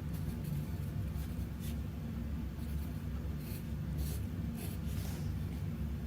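Scattered short scratching strokes of writing on paper, over a steady low hum.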